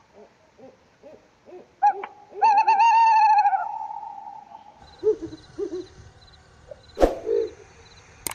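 Barred owl calling: a run of short, low hoots, then, about two and a half seconds in, a loud, wavering hoot lasting about a second that drops in pitch at its end. Later come a few shorter hoots and a sharp click about seven seconds in.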